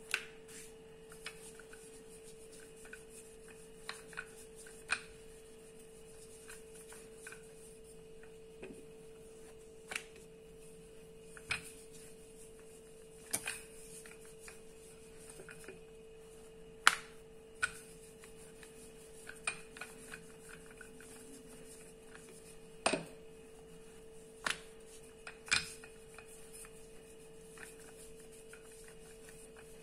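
Wooden rolling pin rolling out roti dough on a floured countertop, with irregular light knocks and clicks as the pin and hands meet the counter, the sharpest about halfway through. A steady faint hum runs underneath.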